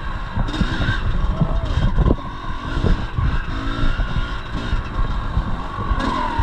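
A 1983 Yamaha IT 250's single-cylinder two-stroke engine is being ridden hard on an enduro test, revving up and down with its pitch rising and falling. Heard close up from a chest-mounted camera.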